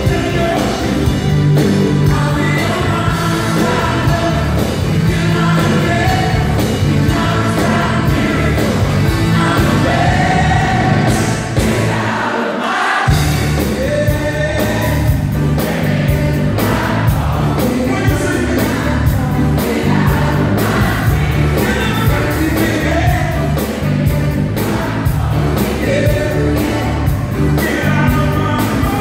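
Live pop-soul band playing, with a lead singer and backing singers over bass, drums and electric guitar. The bass and drums cut out for about a second near the middle, then come back in.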